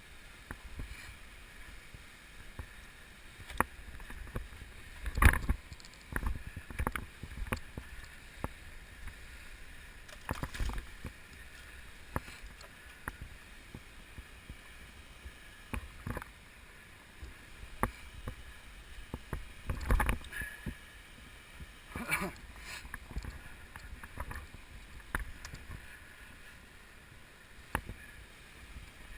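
Scattered knocks, clicks and low thuds over a faint steady hiss, with the strongest bumps about five, ten, twenty and twenty-two seconds in.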